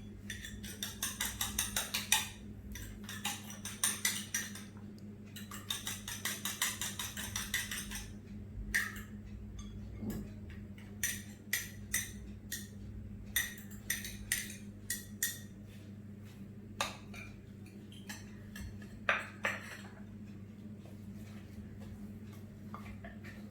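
An egg being beaten with a utensil in a bowl: rapid runs of clicking strokes against the bowl for the first several seconds, then slower, scattered taps.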